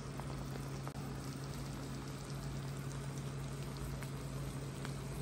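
Shrimps in oyster sauce cooking in a pan, the sauce bubbling and sizzling with many small scattered pops. A steady low hum runs underneath.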